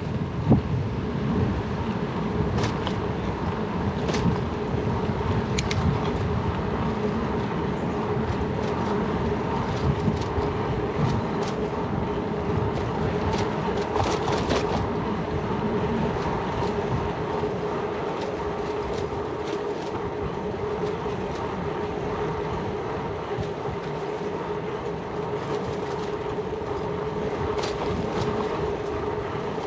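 Riding noise of a Surly Bridge Club bicycle picked up by a GoPro: a steady hum with a constant tone, and scattered short clicks and rattles.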